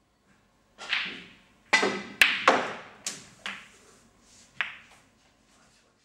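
A snooker shot: the cue ball and object balls clacking against one another, about seven sharp clicks over some four seconds, the loudest in the middle.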